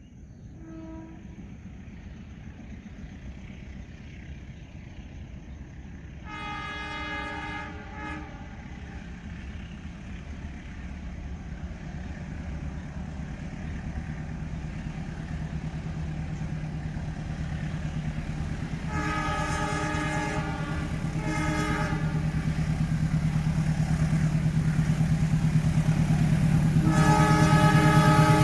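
Train horn sounding in separate blasts: a long one about six seconds in followed by a short toot, two more around twenty seconds in, and another starting near the end. Beneath them the train's running noise and a low steady hum grow steadily louder as it approaches.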